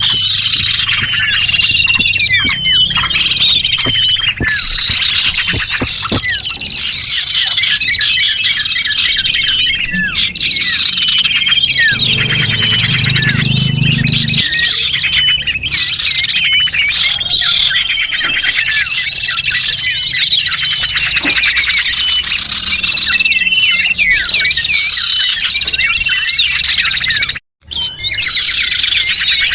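A dense chorus of many small birds chirping and twittering, high-pitched and constant, from a lure-call recording for trapping small birds. The sound cuts out for a split second about 27 seconds in.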